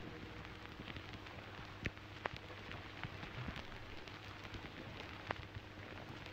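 Faint crackle of an old gramophone record's surface noise: a steady hiss and low hum with many small ticks and a few louder pops, after the song has ended.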